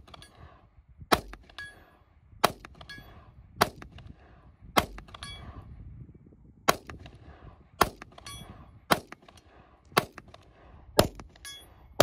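Pistol shots fired at a slow, steady pace, about nine in all, roughly a second apart, at a steel plate about 100 yards off. Several shots are followed by a faint, short metallic ring.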